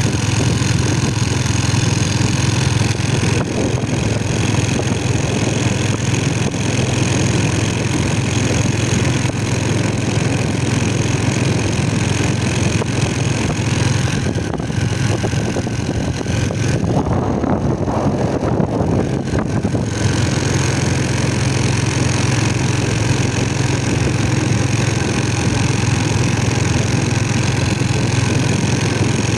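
An engine running steadily, with a constant low hum under an even hiss.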